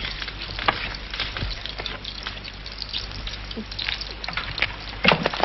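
Food frying on a kitchen stove: a steady sizzling crackle with many small pops, and a few louder clicks near the end.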